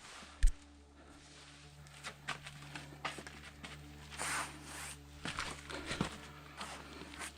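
Footsteps and scuffs of hikers on sandstone and sand, with a sharp knock about half a second in and a longer scrape around four seconds in, over a steady low hum.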